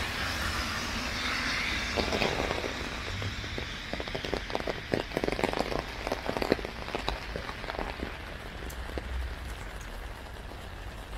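Rain falling on an umbrella over a steady hiss of rain. Between about two and eight seconds in, a run of louder, irregular drops strikes the umbrella, then it settles back to an even hiss.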